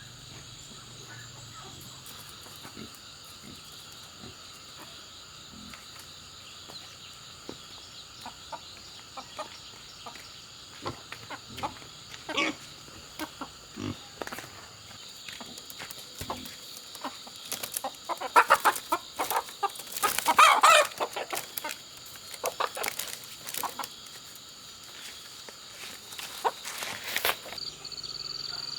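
Chickens clucking, with a rooster crowing; the calls come loudest and densest about two-thirds of the way through.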